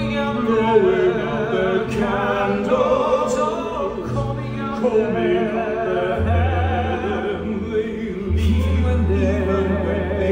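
Theatre singing: a male voice singing with wide vibrato over an orchestra, with two long, low bass notes in the second half.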